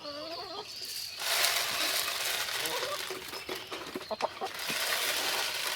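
Hens clucking, then from about a second in a steady rush of chicken feed being poured out of a heavy bucket, with scattered small clicks.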